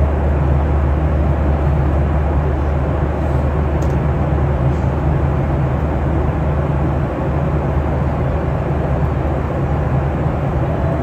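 Steady cabin noise of an airliner in flight: an even, loud low rumble with a rushing hiss above it.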